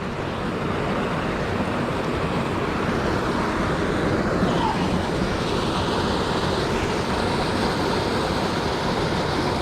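Steady rush of flowing river water, an even noise with no break.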